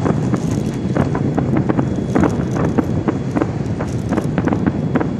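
Aerial fireworks shells bursting in a rapid, irregular series of bangs and cracks, over a steady low rumble.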